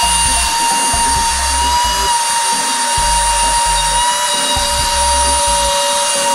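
Suction fan of an Air Hogs Zero Gravity TRON Light Cycle RC toy running with a steady, kind of loud whine, the vacuum motor that holds it to the wall. Under it is a low stop-start pulsing in the bass.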